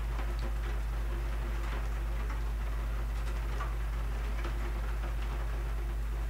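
A steady low hum with faint, scattered ticks and clicks over it.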